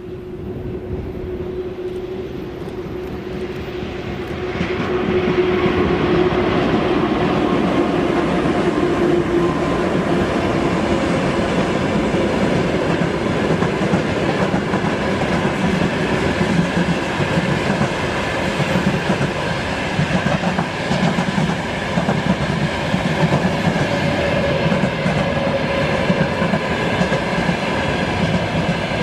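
A train running past on the railway line: a rumble that swells about four to five seconds in as it comes alongside, then continues steadily with the clatter of wheels over the rails.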